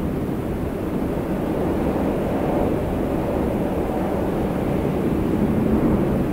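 Steady low rumbling drone, growing slightly louder from about two seconds in.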